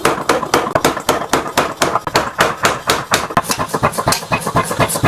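Rapid, even hammer blows, about six a second, on the red-hot steel of an excavator bucket tooth as it is forged out into a chopping-knife blank.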